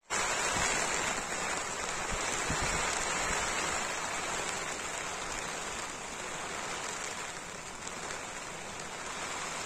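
Steady rain falling, an even hiss that eases a little in the second half.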